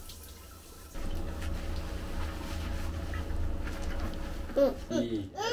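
Hands scrubbing shampoo into a toddler's wet hair: a steady rubbing, starting about a second in. Near the end the child makes a few short vocal sounds.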